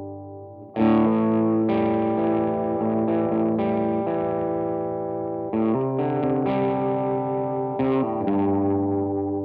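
Yamaha Studio Lord Les Paul-style electric guitar on its vintage Japanese PAF bridge pickup, played through a Vox AC30 amplifier: strummed chords that ring out. A chord fades at the start, a hard-struck chord comes in about a second in, and the chords change several times before the last one rings on.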